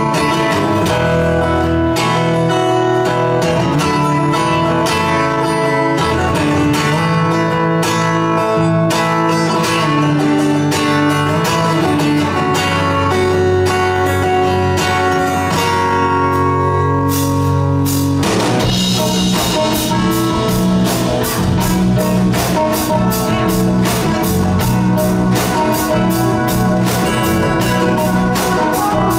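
Live rock band playing an instrumental intro on acoustic and electric guitars. About eighteen seconds in, the arrangement changes and a steady beat comes in.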